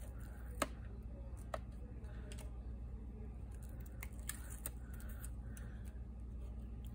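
Small tabletop paper-handling sounds as a cut paper piece is picked up and positioned for gluing: soft rustles and a handful of light clicks and taps, over a low steady hum.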